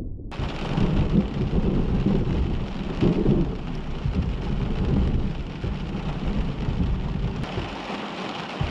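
Thunderstorm: heavy rain hissing steadily over low, rolling thunder that swells about a second in and again about three seconds in. The rain sound begins abruptly just after the start.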